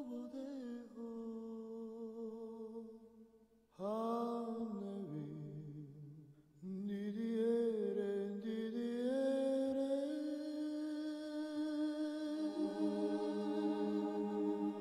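Wordless vocal music: voices humming a slow melody in long held notes, phrase by phrase with short pauses between. A second voice joins in harmony near the end.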